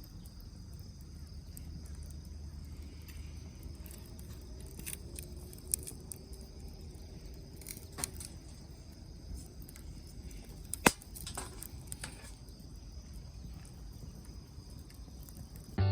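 Campfire in a fire pit crackling softly with a few sharp pops, the loudest about eleven seconds in, over the steady chirring of insects.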